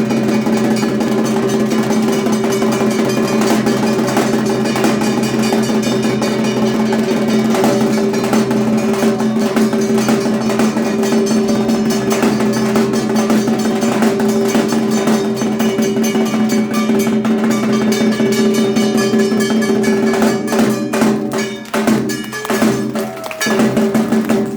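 Dhaak drums beating a fast, dense rhythm over a steady held tone. The playing breaks up and thins out in the last few seconds.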